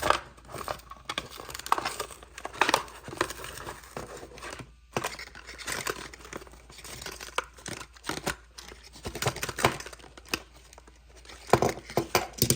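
A Hot Wheels blister card being torn open by hand: irregular tearing and crinkling of the cardboard backing and plastic blister, with scratchy strokes and small clicks, pausing briefly about five seconds in.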